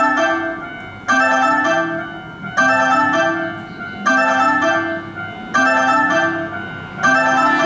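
Electronic train-approach warning chime from the station's platform speakers, repeating a short rising two-note figure about every second and a half, warning that a train is about to pass or arrive.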